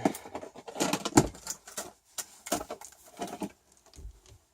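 Handling noise from a multimeter and its test leads being set on terminals: a dense run of irregular clicks, taps and rustles, with the loudest knock about a second in.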